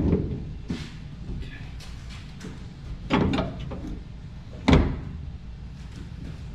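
Hand tools knocking and clanking on the truck during cab-bolt removal: a sharp knock at the start, another about three seconds in, and the loudest near five seconds.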